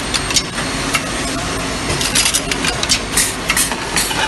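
Automated can filling and seaming line running: a steady machine drone with short, sharp high-pitched sounds coming unevenly, a few times a second.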